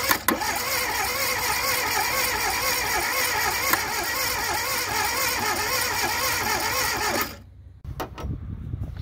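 Fiat 127's old four-cylinder petrol engine running with its revs wavering up and down, then stopping abruptly about seven seconds in. A few light knocks follow.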